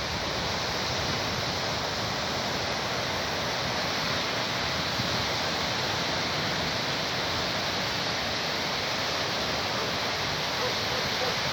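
Sea surf washing onto the shore, a steady rushing hiss with no separate swells standing out.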